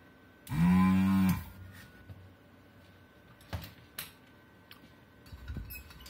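Vacuum pump of a Pro'sKit SS-331H desoldering gun, triggered once: a loud buzz for about a second as it sucks molten solder from a tactile switch's through-hole joints. A couple of sharp light clicks follow a few seconds later.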